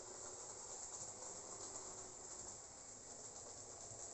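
Faint steady whir of a Jouef model steam locomotive running on its track, its five-pole motor and rubber belt drive turning the worm-driven axle.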